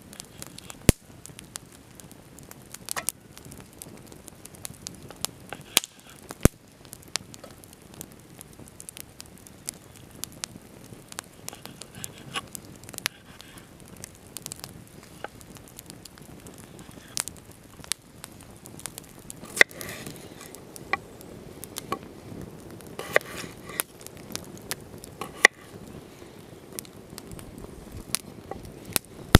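Campfire crackling with irregular sharp pops, along with a knife cutting raw beef into cubes on a wooden cutting board, the blade tapping the board now and then.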